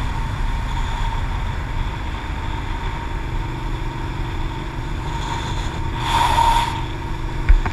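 Motorcycle running at speed along a race track, heard from an onboard camera: a steady engine drone under wind rush, swelling briefly about six seconds in, with a short knock near the end.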